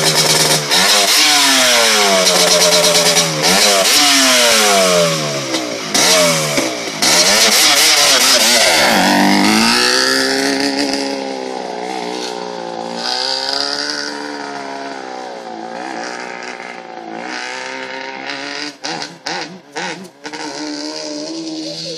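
Yamaha Banshee quad's twin-cylinder two-stroke engine accelerating hard, its pitch climbing and dropping back several times as it shifts up through the gears. It then runs steadier and fainter as the quad rides off into the distance.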